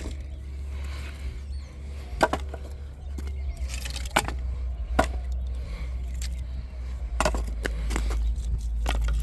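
Cut firewood chunks knocking together as they are set down on a pile: a handful of sharp wooden clunks, spaced irregularly, over a steady low rumble.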